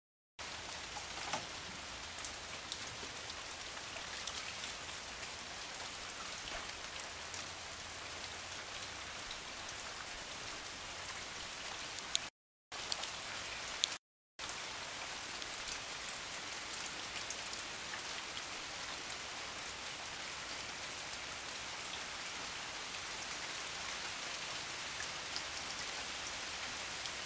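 Steady rain falling on flooded ground and puddles, with scattered light ticks of drops. It cuts out completely twice, briefly, near the middle.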